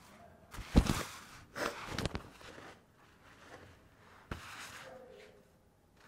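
Cloth scrubbing and wiping over a tiled kitchen counter, with handling knocks: a sharp knock under a second in, a rougher scrubbing burst soon after, and a single click about two-thirds of the way through.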